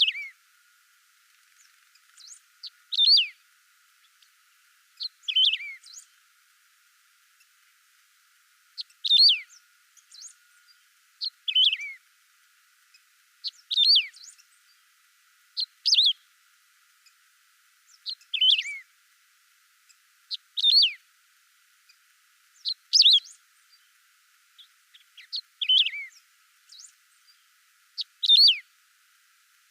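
Canário-do-campo (wedge-tailed grass-finch) singing: a short, high phrase ending in a downward slur, repeated about every two to three seconds, with one longer pause around the middle.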